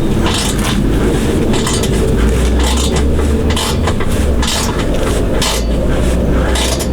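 Irregular metallic clinks and clanks of hand tools on the exhaust bolts under the car, over a steady low rumble.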